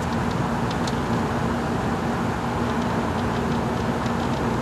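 Steady mechanical drone with a constant low hum, unchanging throughout, and a few faint light ticks now and then.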